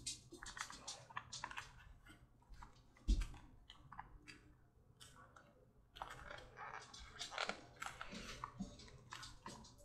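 Damp leather holster being pressed and shaped by hand around a plastic blue-gun revolver: irregular small clicks, creaks and rubbing of the wet leather and plastic, with one sharp thump about three seconds in.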